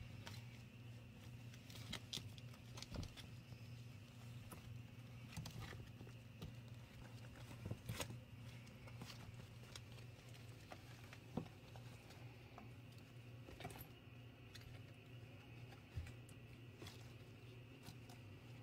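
Faint scuffling and soft pattering of 20-day-old kittens tussling on a quilted fabric pad, with a few sharper taps scattered through, over a steady low hum.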